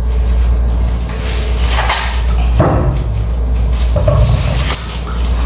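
Green husks being torn and peeled off an ear of fresh corn, with several short rustling rips over a steady low hum.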